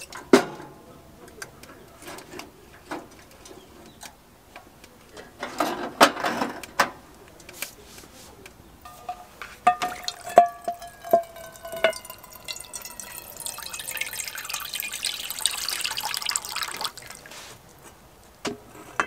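Water pouring from the push-button spigot of a Stanley water jug into a pot. About halfway through the pour begins with a ringing note that rises as the pot fills, becomes a steady splashing stream, and stops a couple of seconds before the end. Scattered clicks and knocks of handled gear come before it.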